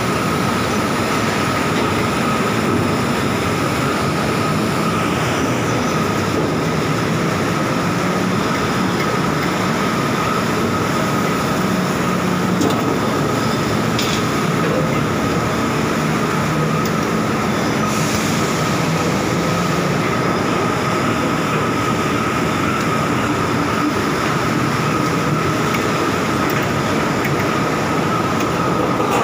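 Steady, loud machinery din of a steel plant's continuous casting bay: a dense mechanical rumble with one constant high tone running through it.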